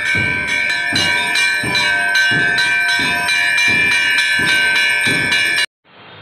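Hanging Hindu temple bells rung over and over, a new strike about every 0.7 seconds over a continuous ringing. The ringing cuts off sharply near the end, leaving a steady faint hiss.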